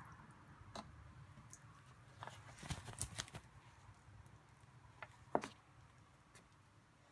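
Motorcycle gloves being handled on a shelf: a few faint knocks and rustles, a cluster of them about three seconds in and the loudest knock about five and a half seconds in.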